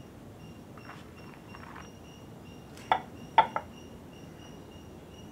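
A few sharp knocks, one about three seconds in and two more close together just after, as a woven bamboo basket is gripped and handled. A faint high chirring in short repeated pulses runs underneath.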